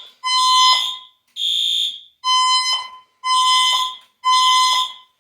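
Fire alarm signal tone sounding in five even pulses, about one a second, each a high pitched tone under a second long.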